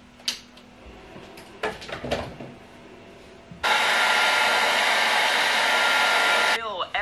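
A few light handling knocks and clicks, then a handheld hair dryer blowing loud and steady for about three seconds, starting and stopping abruptly.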